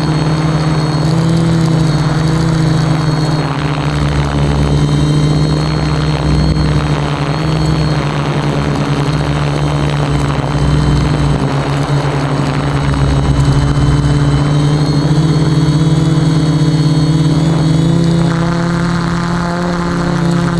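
Quadcopter's electric motors and propellers whirring in flight: a steady buzzing hum that shifts slightly in pitch near the end.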